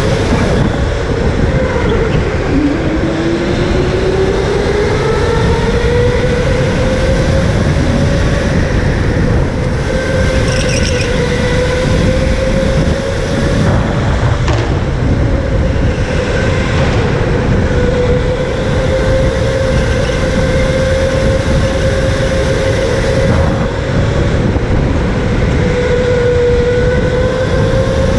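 Electric go-kart motor whining steadily, its pitch sliding up and down as the kart speeds up and slows through the corners, over a constant low rumble of the kart on the concrete track.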